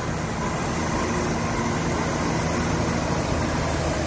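Heavy diesel engine running steadily and low, from a loaded Tata timber lorry climbing a hairpin bend.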